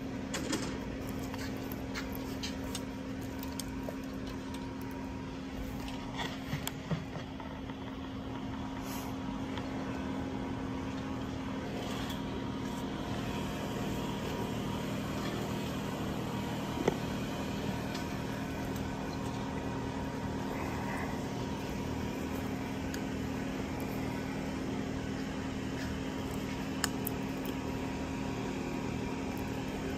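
Steady low mechanical hum from a running motor, with occasional light clicks and rustles of bags being handled; one sharper click about halfway through.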